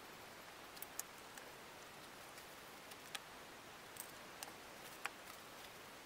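About six faint, scattered light metal clicks as oiled steel tappets (cam followers) are handled and slid into their bores in a Skoda 105 engine block, over a low steady hiss.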